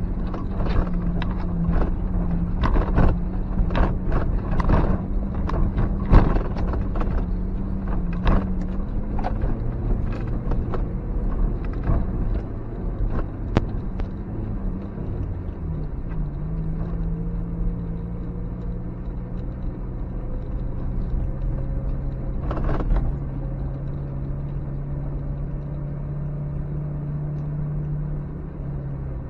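Suzuki X-90's 1.6-litre four-cylinder petrol engine running, heard from inside the cabin as the car drives over a rough, stony track, with frequent sharp knocks and clatter from the car jolting over bumps. After about fifteen seconds the engine note drops and steadies, and the knocks die away as the surface gets smoother.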